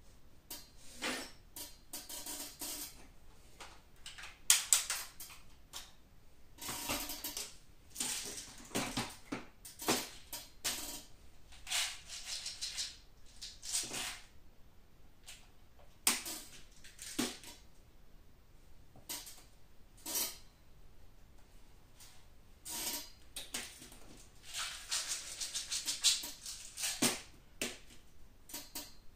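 Irregular clicks, rattles and rustles of handling noise, scattered unevenly with no steady rhythm; the sharpest click comes about four and a half seconds in.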